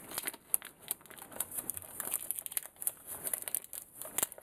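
Baking parchment paper crinkling in irregular crackles as it is handled and peeled away from a baked cheesecake.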